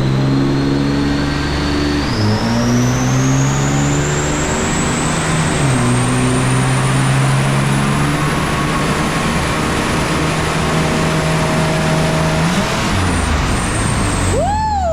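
Nissan RB30 straight-six in a VL Commodore run hard on a chassis dyno, its high whine rising in pitch for about eight seconds, holding, then backing off near the end.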